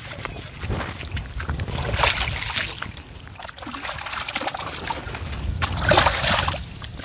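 Water splashing and sloshing in two noisy bursts, one about two seconds in and one near the end, over a low steady rumble.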